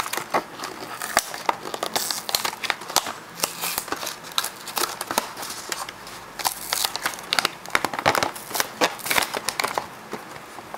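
A toy's clear plastic blister pack and cardboard backing card being crinkled and torn open by hand: dense, irregular crackling and crinkling.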